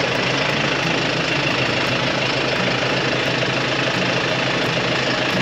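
Diesel engine of an OKA 4x4 truck running steadily with an even hum.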